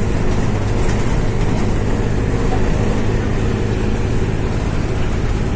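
Diesel engine of an intercity economy bus running steadily at cruising speed, heard inside the cabin as a low drone over road and tyre noise.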